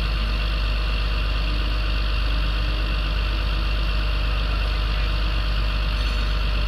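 Diesel engine of a Locatelli Grill 830 mobile crane running steadily while the crane holds a suspended precast concrete module.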